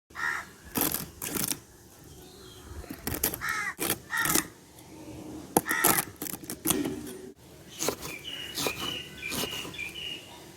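Irregular clicks and knocks of cooking utensils being handled, with short bird calls, crows among them, and a few repeated high chirps near the end.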